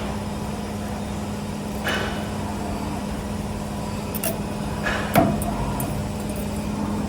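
CNC spring-forming machine running on 4.5 mm wire: a steady mechanical hum with a few short swishing strokes, and a sharp metallic clack about five seconds in.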